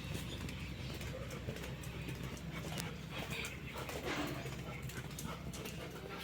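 A dog making a few short sounds about three to four seconds in, over a steady low hum.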